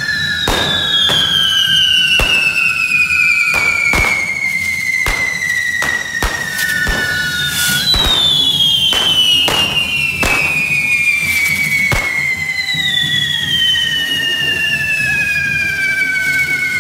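Correfoc carretilles, spinning firework fountains fixed to devils' forks, whistling shrilly as they burn. Several whistle at once, each one slowly falling in pitch, and fresh ones start about halfway through and again near the end. Sharp firecracker bangs go off irregularly, about one a second, over the hiss of sparks.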